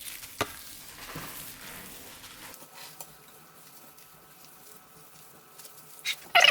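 Faint rustling and light scratching of paper and a cloth rubbed over a freshly applied vinyl decal to press it down, with a single click about half a second in.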